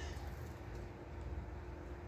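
Low background rumble with one faint steady hum, and no distinct event.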